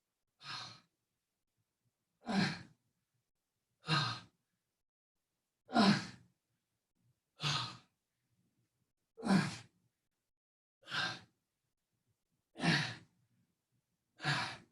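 A man's forceful exhales, one every 1.7 seconds or so and nine in all, breathed out with each rep of a side plank reach-through.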